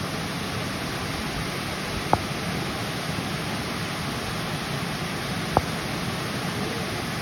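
Steady rushing of flowing river water. Two sharp clicks cut through it, about two seconds in and again about three and a half seconds later.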